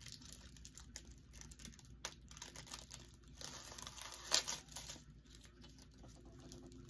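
Faint crinkling and rustling of small plastic and paper packaging being handled, with a louder crackle about four and a half seconds in.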